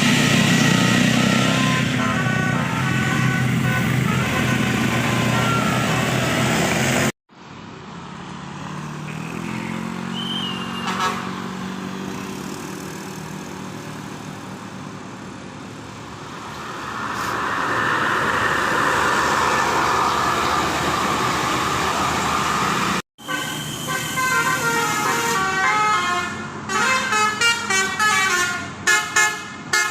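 Tour bus's Basuri telolet multi-tone horn playing quick melodic tunes, the notes stepping up and down. In the middle stretch the horn stops and the bus's engine and road noise take over, then the horn comes back with fast, choppy bursts of notes near the end.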